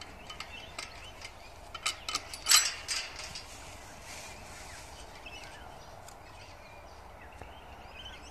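Chain latch on a metal mesh farm gate clinking and rattling against the post as it is hooked shut, with a sharp metal clank about two and a half seconds in. Faint bird calls follow.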